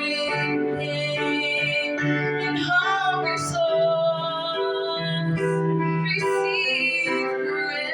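Worship song: a woman singing a slow melody over sustained keyboard or piano chords.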